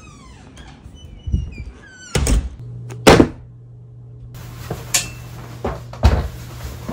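Several dull thumps and knocks in a small room, the loudest about three seconds in, then a steady low hum with a few lighter, sharper knocks near the end. A few falling tones fade out at the very start.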